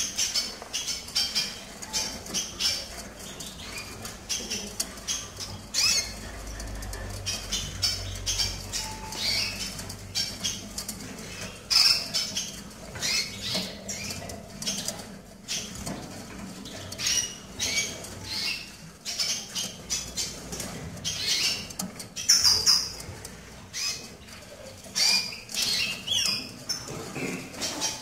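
Caged canaries fluttering their wings and giving many short, high chirps, scattered irregularly throughout.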